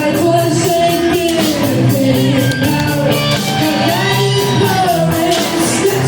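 Student rock band playing a classic metal cover live: distorted electric guitars, bass and drums with cymbal hits, and a sung vocal line over them.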